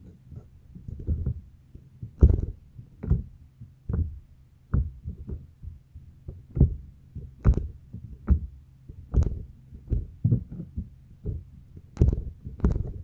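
Slime being squished and played with: wet squelches and small pops, one or two a second at uneven intervals.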